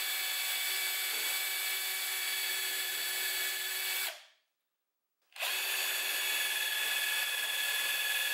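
Cordless drill running steadily at full speed with a high motor whine as its bit bores into a steel plate, starting hole centres through a bracket used as a template. It stops about four seconds in and starts again about a second later on the second hole.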